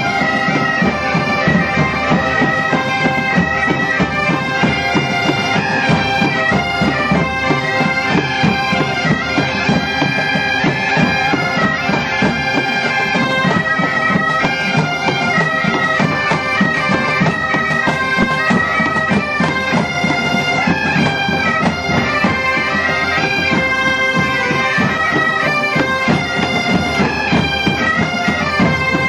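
A large band of Galician bagpipes (gaitas) playing a tune together over their steady drones, with snare and bass drums keeping the beat.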